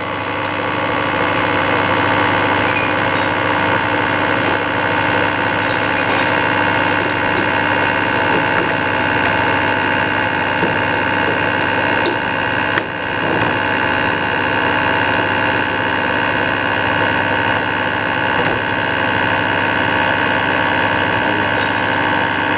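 C6250B metal lathe running steadily in a slow gear, the spindle set to about 70 RPM, with a steady many-toned mechanical hum. It builds over the first couple of seconds, and a single sharp click comes about 13 seconds in.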